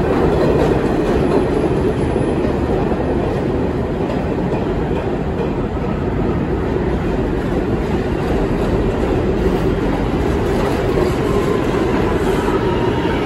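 New York City subway trains running through an underground station: a steady, loud clatter of steel wheels over the rail joints as one train moves on the next track and another approaches on the near track. A faint whine creeps in near the end.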